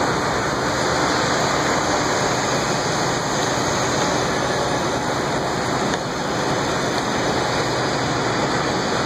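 Steady, loud rushing noise of an outdoor construction site, even throughout with no distinct knocks or tones.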